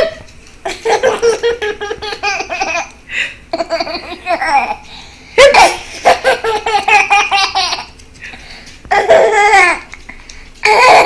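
Hearty laughter in about five long bouts with short breaks between them.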